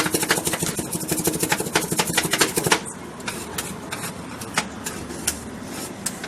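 Metal spatulas chopping and tapping rapidly on a rolled-ice-cream cold plate, over a steady machine hum. About three seconds in, the fast chopping and the hum stop, leaving occasional single taps.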